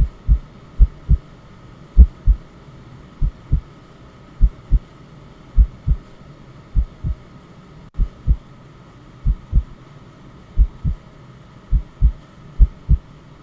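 Recorded heartbeat sound: a steady double thump, lub-dub, repeating a little more than once a second. Under it runs a faint, steady background hiss and hum.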